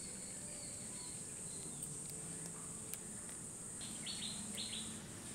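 Rural ambience: a steady high-pitched insect drone, with three short, quick bird chirps about four seconds in.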